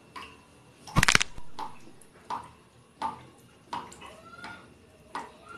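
Close-up eating and food handling: small wet clicks from the bread and filling recurring about every three quarters of a second, with one short, loud clatter about a second in.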